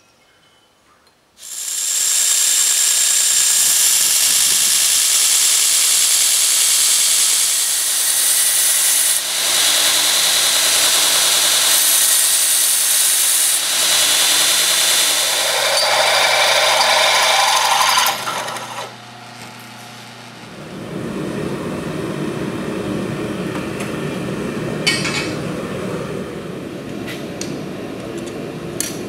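Belt grinder running with steel pressed against the belt: a loud, high hissing grind that starts about a second and a half in and lasts about seventeen seconds. After a short dip, a steadier, lower rushing noise takes over, with a couple of sharp metal clinks near the end.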